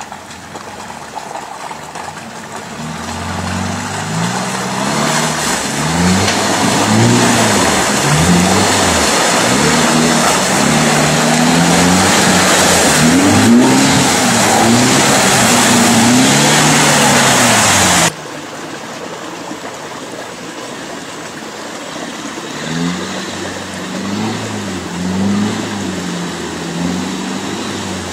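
Four-wheel-drive SUV engine revving up and down over and over as it churns through deep mud ruts, under a loud rushing noise. About 18 s in it cuts abruptly to a quieter engine, still revving up and down.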